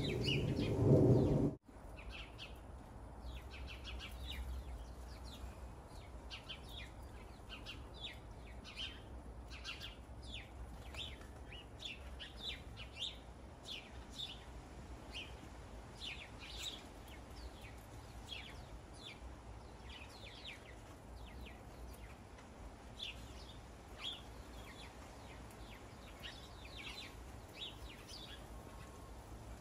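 A loud rumble of thunder and rain cuts off abruptly about a second and a half in. After that, many birds chirp and call in short, quick notes, overlapping one another, over a faint low background.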